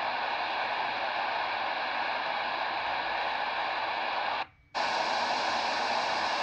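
Steady shortwave static hiss from a Degen DE1103 portable receiver's speaker, tuning through empty frequencies just above 3000 kHz in single-sideband mode. About four and a half seconds in, the sound cuts out for about half a second as the receiver jumps ahead to a new frequency.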